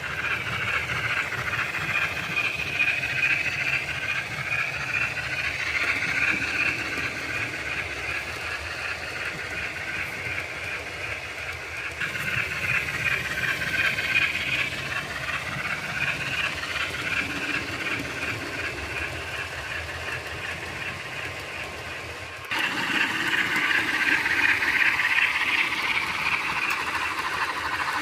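Model steam locomotive running with a DCC sound decoder, playing steam chuffs and hiss through its small speaker, with wheel noise on the track. The sound steps up abruptly to a louder level about three-quarters of the way through.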